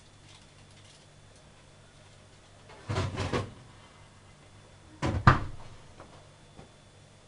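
Kitchen bowls clattering as they are picked up and set down, in two short bursts about two seconds apart, the second one louder.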